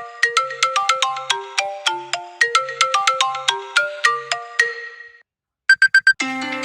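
A phone ringtone plays a quick marimba-like melody of struck notes, which fades out about five seconds in. After a short gap come four quick beeps, and then a different plucked-string tune starts near the end.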